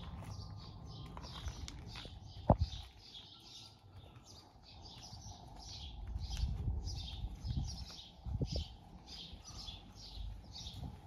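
A small bird chirping over and over, about three high chirps a second, over a low uneven rumble. A single sharp knock about two and a half seconds in is the loudest sound, and a few softer thumps come later.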